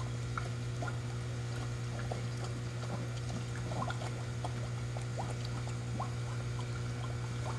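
Koi slurping and smacking their mouths at the water's surface, many short irregular pops and gulps, over a steady low hum.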